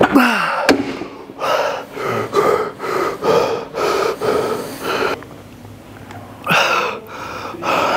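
A man panting hard after straining through a set of curls to failure: a short strained vocal sound falling in pitch at the start, then a run of about eight quick, heavy breaths, and two more near the end.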